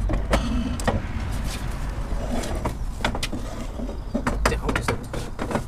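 Irregular metal clicks and knocks of hand tools and parts being worked while a rear axle shaft is taken off the axle housing, over a steady low rumble.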